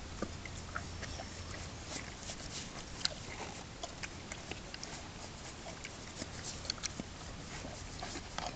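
A horse eating frozen bran mash from a feed pan: irregular small crunches and clicks of teeth and lips working at the icy mash and knocking the pan.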